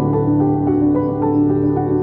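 Calm new-age background music: a slow run of held, overlapping notes.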